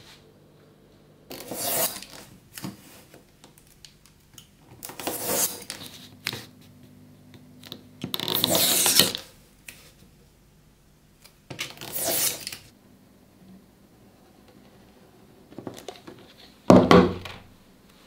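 Utility knife with a snap-off blade scoring dark plastic sheet on a cutting mat: four separate cutting strokes, each about a second long, then a sharper, louder knock near the end.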